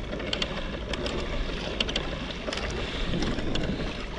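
Water splashing and lapping around a kayak on the sea, with scattered small ticks and splashes over a steady wash, and wind buffeting the microphone.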